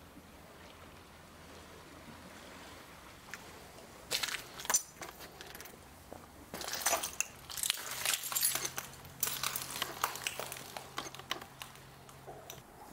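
Footsteps crunching on rubble and broken plaster strewn over a concrete floor, in irregular bursts starting about four seconds in, after a quiet stretch with a faint steady background.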